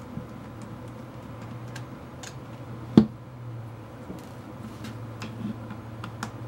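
Faint clicks and ticks of a precision screwdriver working small screws out of a Canon Rebel T3's plastic back cover, with one sharper, louder click about three seconds in. A steady low hum runs underneath.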